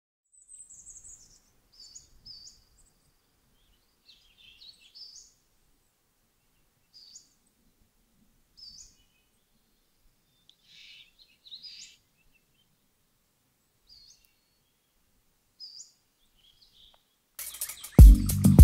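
Birds chirping faintly, short high calls every second or two. Near the end, loud music with a heavy bass beat comes in.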